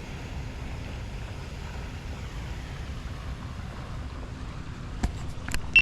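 Wind rumbling and buffeting on the microphone outdoors, with a few sharp clicks near the end.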